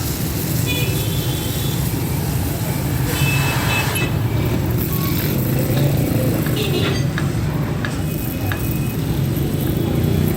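Steady low mechanical hum of running machinery or an engine under a noisy background, with a few light clicks.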